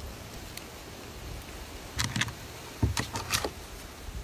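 A few footsteps on concrete with light metallic jingling, in two short runs about two seconds and three seconds in.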